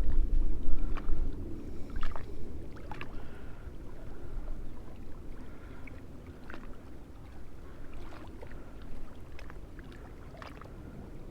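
Wind buffeting the microphone, a low rumble that is heaviest in the first three seconds and then eases, with scattered light clicks.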